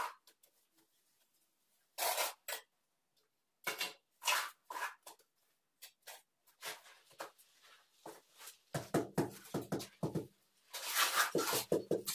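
Steel trowel scraping and slapping mortar, scooped from a plastic bucket and spread on the back of a ceramic wall tile, in short separate strokes. Near the end comes a quicker run of lower knocks and scrapes as the tile is worked onto the block wall.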